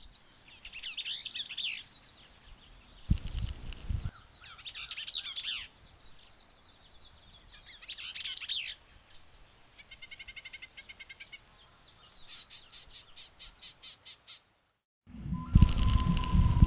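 Least Bell's vireo singing short, rapid, jumbled warbled phrases, three in the first nine seconds, followed by higher, faster chattering. A brief loud noisy burst comes about three seconds in. After a moment of silence, loud music starts near the end.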